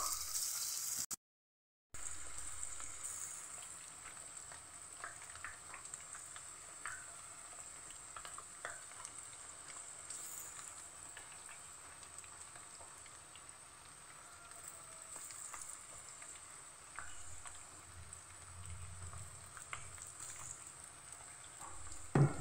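Marinated chicken pieces frying in hot oil in a kadai: a steady, faint sizzle with scattered small pops and crackles. The sound cuts out briefly about a second in.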